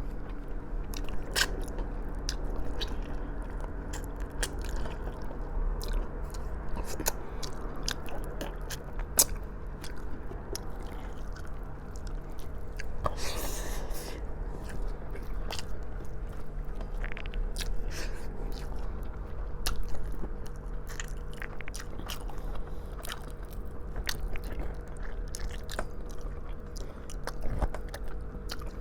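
Close-miked chewing of braised pork trotters (humba): wet biting and lip smacking with many sharp mouth clicks, over a faint steady hum.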